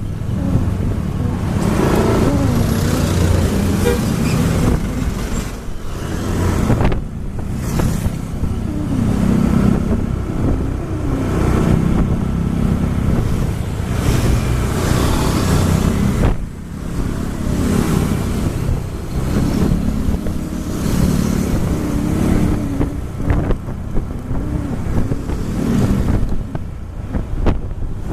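Road traffic heard from a moving vehicle: an engine running with its pitch rising and falling, over steady road and wind noise.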